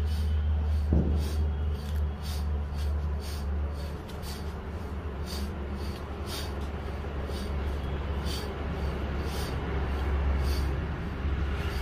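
Sloth bear eating with its snout on the floor, short smacking clicks of its mouth about twice a second, over a steady low rumble.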